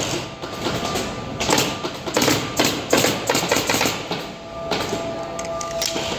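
Hand work in a furniture workshop: a string of irregular knocks and short scraping noises, over a faint steady tone.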